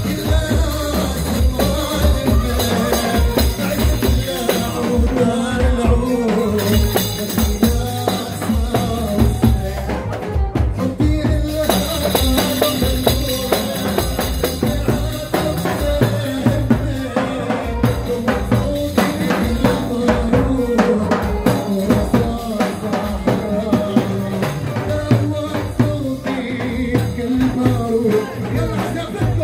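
Live Arabic song: a man singing into a microphone while several hand frame drums and a jingled riq tambourine are beaten along in a steady rhythm.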